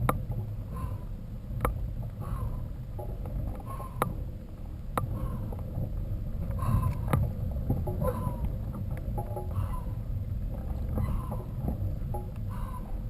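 Mountain bike being ridden on a rough track: wind rumbling on the microphone, with sharp clicks and knocks from the bike and short squeaks repeating about once a second.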